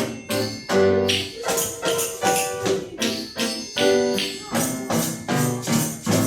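Children's percussion ensemble playing tambourines and other hand percussion in a steady rhythm over pitched accompaniment, with about two to three strikes a second.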